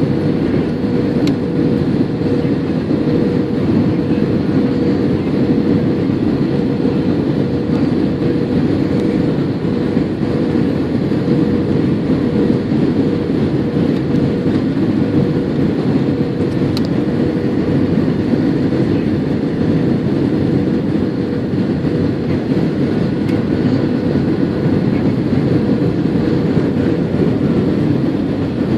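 Steady cabin noise of an Airbus A320-232 in descent for landing: its IAE V2500 engines and the airflow over the fuselage, heard from inside the cabin as an even rush with a constant mid-pitched hum through it.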